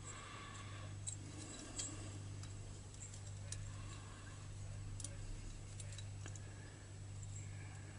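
Faint scattered small clicks of a starter pawl and its wire spring being fitted by hand onto a chainsaw's magneto flywheel, over a steady low hum.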